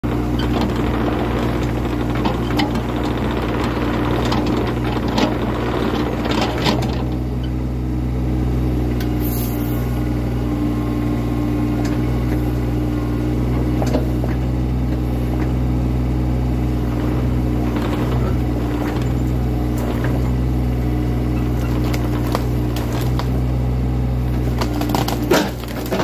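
Mini excavator's diesel engine running steadily, heard from the operator's seat, with scattered knocks and clanks from the machine working, busiest in the first several seconds.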